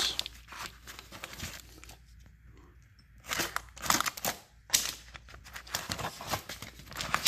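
Water-soaked corrugated cardboard box flaps being pulled open and handled: irregular bursts of crinkling and rustling, with a quieter stretch about two seconds in.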